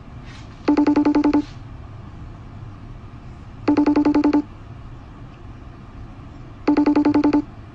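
Electronic phone-style ringer trilling: a rapid, steady-pitched warble about 0.7 s long, sounding three times, about three seconds apart, over a steady low hum.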